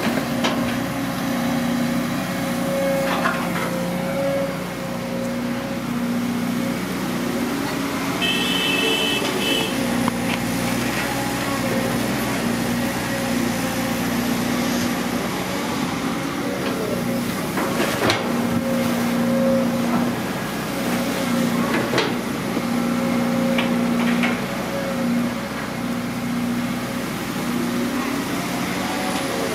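Diesel engine of a Caterpillar long-reach excavator running steadily, its note rising and falling as the hydraulics swing the boom and dig, with a few sharp knocks from the bucket and arm.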